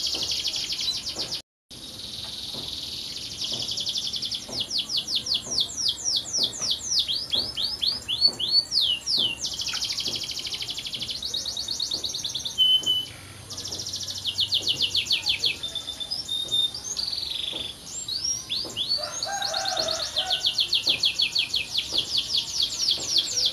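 Domestic canary singing a long, fast song of rapid repeated notes and rising trills, high-pitched, broken by a brief total dropout about a second and a half in.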